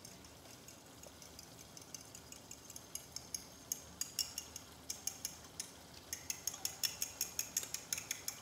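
A fork beating eggs in a small ceramic bowl: quick, light clinks of the fork against the bowl, sparse at first and coming faster from a few seconds in.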